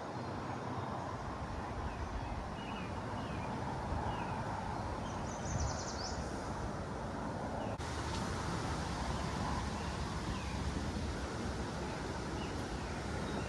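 Wind buffeting the microphone in a steady low rumble, with faint bird chirps and a brief rapid high ticking about halfway through.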